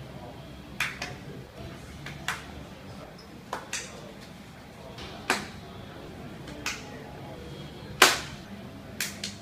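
Single hand claps at irregular intervals, about ten in all, some in quick pairs and the loudest about 8 seconds in, over a steady office hum. A man clapping at his computer monitor.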